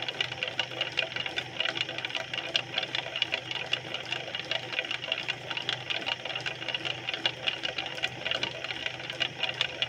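Motorised potter's wheel running steadily: a low motor hum with a fast, even rattle, while wet clay is thrown on it.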